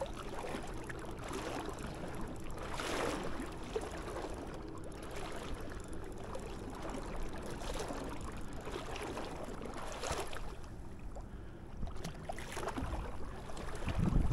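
Shallow river water sloshing and swishing around a wading angler's legs: a steady watery rush with a few louder swishes.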